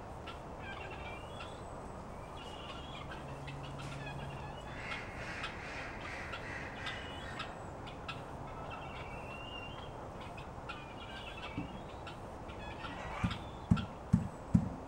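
Backyard poultry calling: a busy chatter of short, high calls that comes and goes. Near the end there are a few loud, dull thumps in quick succession.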